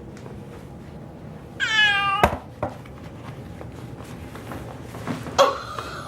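A domestic cat meowing in protest while being held to be given a pill: one loud, drawn-out meow with a falling pitch about two seconds in, then a sharp knock, and another short cry near the end.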